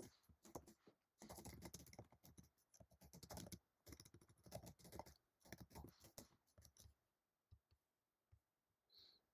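Faint computer keyboard typing, in quick runs of keystrokes that stop about seven seconds in.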